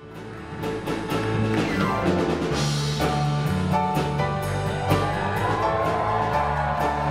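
Upbeat stage music with a drum kit and bass, striking up suddenly after a brief pause.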